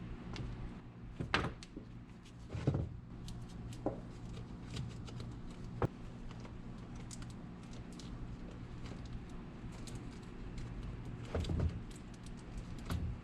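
Scattered light clicks and knocks of hand work, with a few louder knocks, over a steady low hum.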